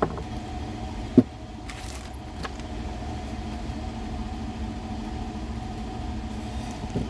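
A steady low mechanical hum, like an idling engine, with one sharp click about a second in.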